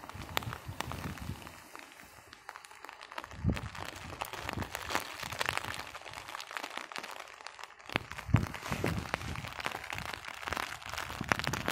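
Rain, with scattered drops ticking and crackling close to the microphone, and a few low thumps.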